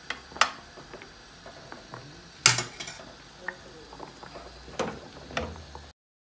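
Spoons knocking and scraping against cookware: a spoon on the glass baking dish as white sauce is spread, and a wooden spoon stirring and scooping ground-meat sauce in a frying pan. There are a handful of sharp knocks, the loudest about two and a half seconds in, and then the sound cuts off abruptly near the end.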